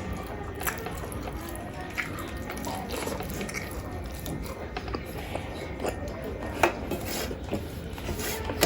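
Wet eating sounds of chicken curry and rice: squelching mouthfuls and handling of the food, with occasional sharp clicks against the plate.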